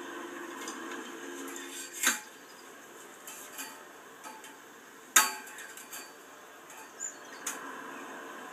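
Steel fence wire clinking as it is worked by hand into a join: two sharp metallic clinks about two and five seconds in, the second the loudest, with a few lighter ticks between and after.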